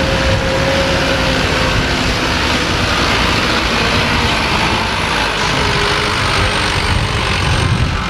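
A Mitsubishi light dump truck, laden with soil, driving slowly along a dirt road: steady engine noise under a constant rushing hiss.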